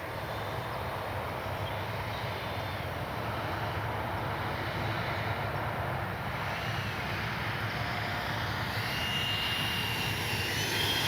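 RC jet's 80mm twelve-bladed electric ducted fan, driven by an in-runner motor, running in flight with a steady rushing whine that slowly grows louder as the model approaches. A thin whine rises in pitch near the end.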